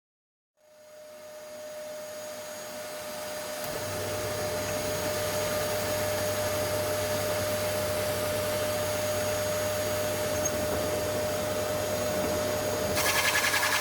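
A small electric motor running steadily with airflow noise and a constant whine. It fades in over the first few seconds and turns louder and rougher near the end.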